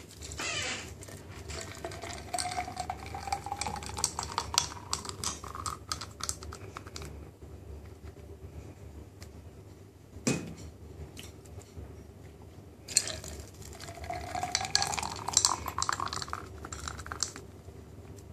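Watermelon smoothie poured from a blender jug into a tall glass over ice cubes, the pouring note rising in pitch as the glass fills, with ice clinking against the glass; after a short knock, a second glass is filled the same way.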